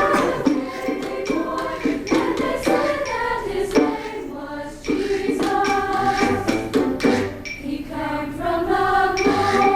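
Women's choir singing in harmony, holding sustained notes, with a brief dip between phrases about four seconds in.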